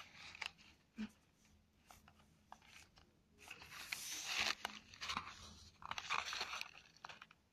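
Crunching of candy-coated Smarties being chewed, in two noisy spells, with scattered small clicks and the cardboard box being handled.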